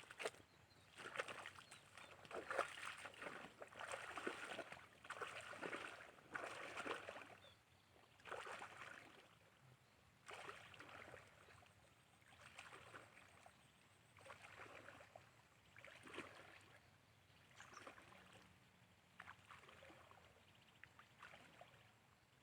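Footsteps sloshing through wet ground and shallow water, a soft swishing step every second or so, growing fainter later on.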